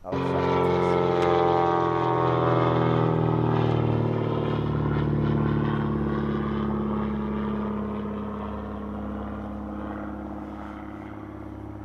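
An engine drones steadily, its pitch easing down a little over the first few seconds, then slowly fading.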